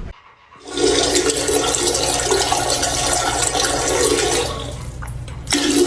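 Rushing water, starting about a second in after a brief hush, easing off after a few seconds, with a short surge again near the end.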